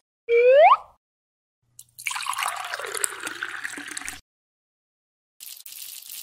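Dubbed cartoon sound effects: a short rising squeaky whoop, then about two seconds of liquid pouring and gurgling as if from a tilted drink can, then a thin high hiss near the end.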